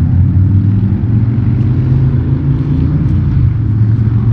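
Wind buffeting the microphone: a loud, steady, fluttering low rumble, with a few faint clicks.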